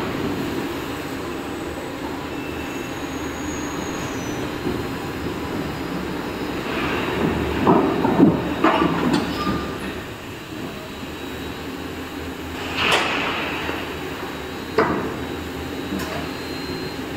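Steady rumble of an overhead crane running, with sharp metal clanks as a lifting magnet is set on and handled against steel channel sections, the loudest about eight and thirteen seconds in.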